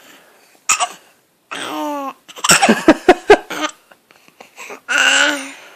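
Baby hiccuping while trying to babble: short pitched coos broken by sudden sharp hiccups, with a quick run of about five sharp catches near the middle.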